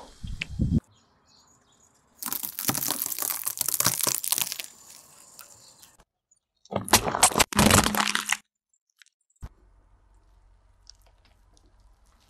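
A car tyre crushing objects on pavement: two loud spells of cracking and crunching, one starting about two seconds in and lasting a couple of seconds, the other about seven seconds in, the second matching small plastic slime tubs being crushed. A brief splatter of liquid at the very start; faint low hum near the end.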